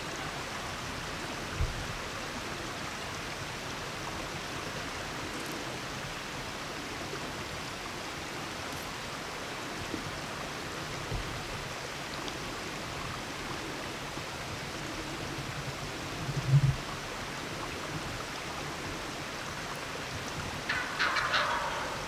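A wild turkey tom gobbles once near the end, a short rattling call. Under it runs a steady hiss, with a dull low thump a few seconds before the gobble.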